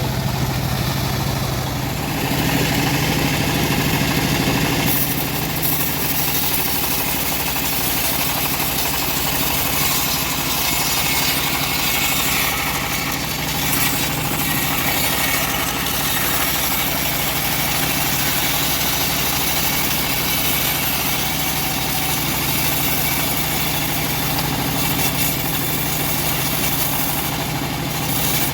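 Engine-driven homemade bandsaw mill running steadily while its blade saws through an old mahogany log, an engine drone under a steady sawing hiss. About two seconds in the engine note shifts and the hiss grows louder.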